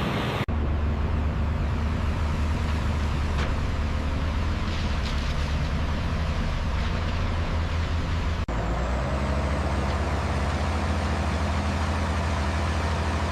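Steady low engine-like rumble with hiss over it, broken by two abrupt momentary cuts, about half a second and eight and a half seconds in.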